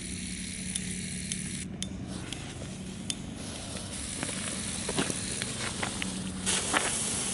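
Small Category 1 ground fireworks burning: a steady hissing sizzle of fuse and sparks, with scattered small crackles that become more frequent in the second half.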